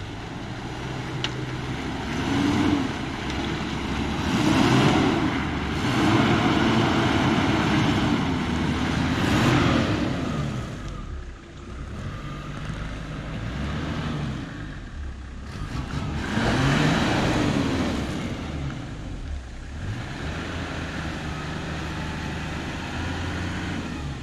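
Toyota LandCruiser 80 Series engine revving hard in several surges, its pitch climbing and falling, as the truck struggles up a slippery muddy climb without making it; the driver puts the failed climb down to the truck hanging up on its diffs.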